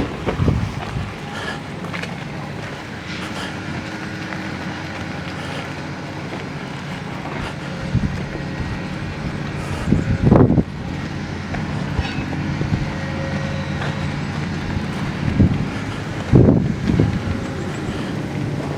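Engine of road-repair machinery running steadily, with two short louder surges, about ten and sixteen seconds in.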